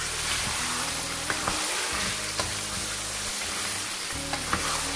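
Chicken pieces sizzling as they fry in hot oil in a karahi, with a few sharp knocks of the spoon against the pan as they are stirred.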